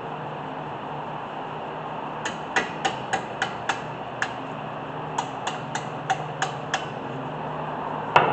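Hammer tapping on metal: two quick runs of about six sharp, ringing strikes, roughly three a second, with a single louder strike near the end.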